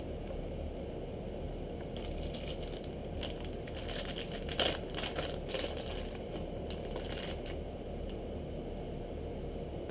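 Plastic packaging of soft-plastic fishing baits crinkling and clicking while being handled, in scattered bursts through the middle, with the sharpest click about halfway. A steady low hum runs underneath.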